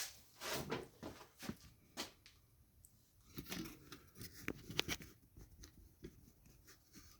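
Handling noise of a camera being picked up and repositioned: faint, scattered clicks, knocks and rustling.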